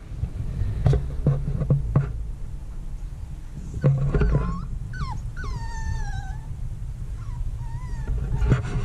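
Puppy whimpering: a few short high whines that fall in pitch, with fainter ones a couple of seconds later. A few knocks come before them.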